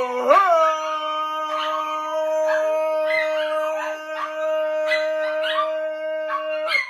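A man singing one long, steady held note, with a dog howling and yipping along over it in short wavering calls.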